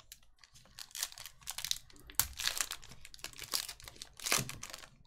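Foil wrapper of a trading-card pack crinkling and tearing as it is ripped open by hand: a run of crackling rustles, loudest about two seconds in and again near the end.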